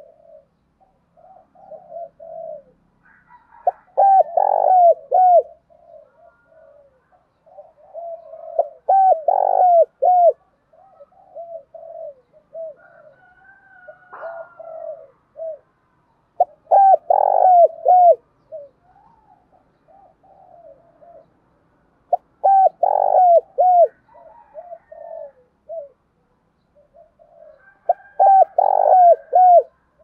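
Spotted dove cooing in a fast, insistent challenge call. Loud phrases of quick coos come about every five to eight seconds, with softer coos in between.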